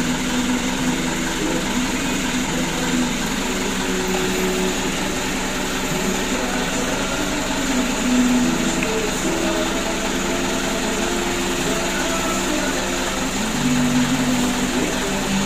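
A steady machine drone with background music of short held notes over it. The hand work on the turbocharger makes no sound that stands out.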